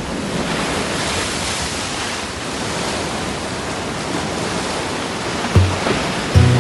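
Steady rushing wash of sea surf. Near the end, music comes in with low, plucked notes.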